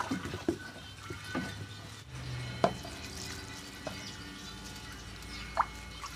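Light scattered clicks and knocks of a plastic dipper and plastic bowls being handled, over a low steady hum; two sharper clicks, about two and a half seconds in and near the end.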